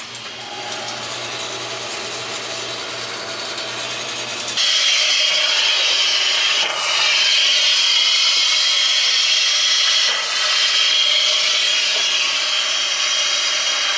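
Water and trapped air rushing out of an open hot-water faucet as the drained, repaired copper line refills and is bled of air: a steady hiss that gets abruptly louder about four and a half seconds in.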